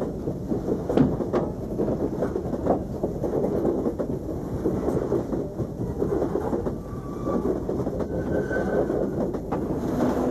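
Railway platform ambience: a steady rumble and clatter from a passenger train, with scattered knocks.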